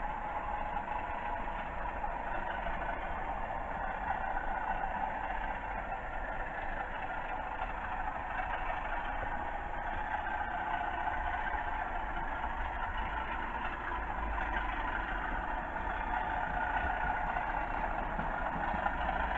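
Model Class 37 diesel locomotives' sound decoders playing a steady diesel engine running sound through the locos' small onboard speakers, with no change in pitch or level.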